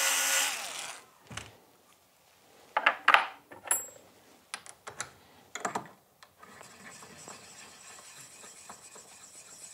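Small electric motor of a case prep tool running and winding down about a second in, then several sharp metallic clinks, several of them a few tenths of a second apart, as of brass cartridge cases handled and set down.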